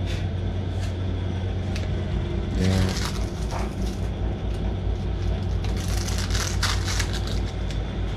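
Metal lathe running with a steady hum, and emery cloth rasping against a turned steel part in two stretches, about two and a half seconds in and again around six seconds in.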